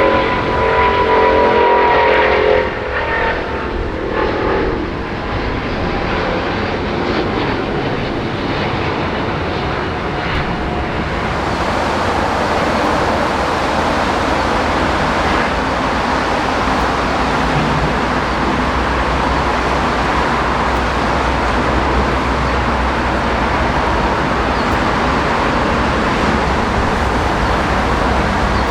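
Jet airliner engine noise: a whine with several tones fades over the first three seconds or so, giving way to a steady rushing noise that grows fuller about eleven seconds in.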